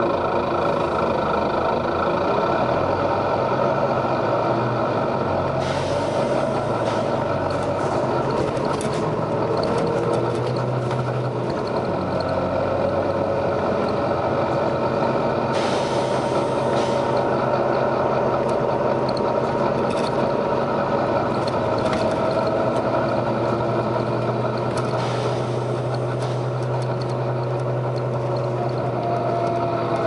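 Volvo B9TL double-decker bus heard from inside the passenger saloon: its nine-litre six-cylinder diesel runs, its pitch rising and falling as the bus drives. Several short hisses of compressed air come from the bus's air system, the clearest about 6 and 16 seconds in.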